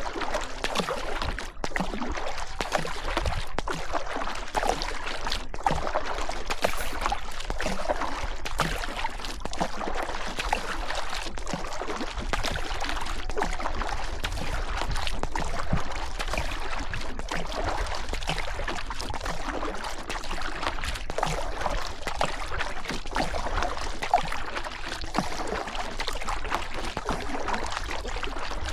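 River water rushing and splashing steadily around a boat on the current, with a low rumble underneath.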